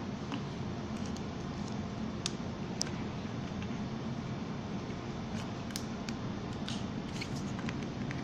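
Phone accessories in plastic bags and a cardboard box being handled and set down on a table: a scattering of short, light clicks and crinkles, most of them from about two seconds in, over a steady low room hum.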